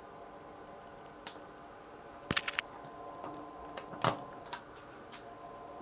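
Small clicks and taps of tweezers and small tools handling a disassembled phone's parts. There are a few scattered sharp ticks, the loudest a quick cluster about two seconds in.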